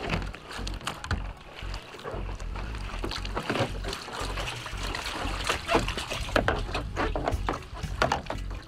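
Water splashing and sloshing around a flooded sea kayak as it is rolled over and back upright beneath a paddler in the water, with irregular splashes and knocks throughout.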